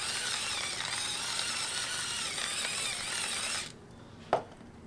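Salt mill grinding sea salt over raw chicken pieces, a steady grinding that stops abruptly about three-quarters of the way through, followed by a single short knock.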